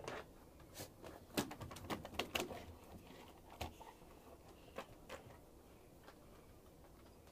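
Black Labrador retriever moving on a wooden deck with a plastic flying disc in its mouth: a quick run of light clicks and knocks from its claws and the disc on the boards, thickest in the first three seconds, with a few last taps around four and five seconds in.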